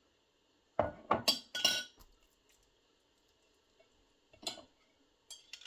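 Dishes and utensils clinking and knocking against each other: a quick run of four or five clinks about a second in, then two or three lighter ones near the end.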